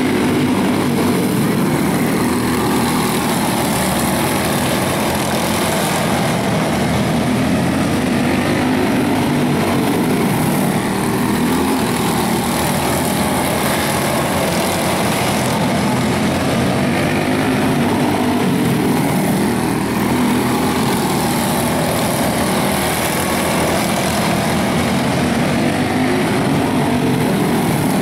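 Several quarter midget race cars with Briggs & Stratton Animal single-cylinder engines running flat out around a dirt oval: a steady, overlapping buzz of small engines whose pitch rises and falls as the cars pass.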